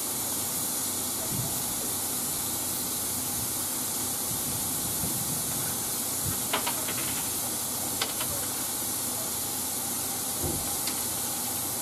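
Steady hiss of steam from the standing C11 207, a JNR Class C11 steam tank locomotive, with a few light clicks between about six and a half and eight seconds in.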